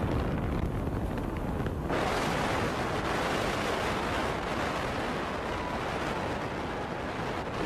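Wind rushing in through an open car window and buffeting the microphone, over the rumble of a car driving at speed. The rush gets louder and hissier about two seconds in.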